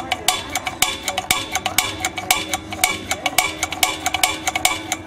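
Spark igniter of an old propane patio heater clicking rapidly, several sharp clicks a second with a slight ring, while the pilot is held in and fails to light: no gas seems to reach the pilot.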